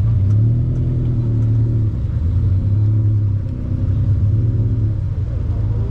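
A car engine running steadily at low revs, a loud, low rumble that holds its pitch throughout.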